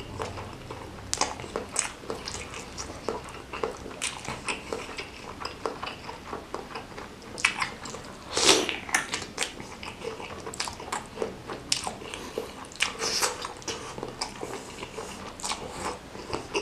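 Close-miked wet eating sounds from bakso meatball soup with noodles: irregular chewing and lip smacking, with one louder slurp about halfway through as a spoonful of noodles goes into the mouth.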